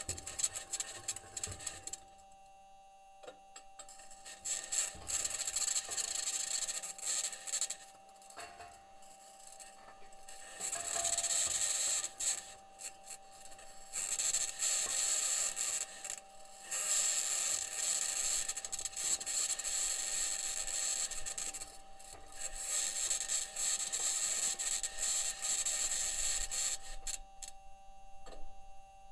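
Perseverance Mars rover driving, heard through its entry, descent and landing microphone: a high-pitched scratching that comes and goes in stretches of a few seconds, over a faint steady tone. The scratching may come from electromagnetic interference from one of the rover's electronics boxes, or from its wheels and suspension working against the Martian surface.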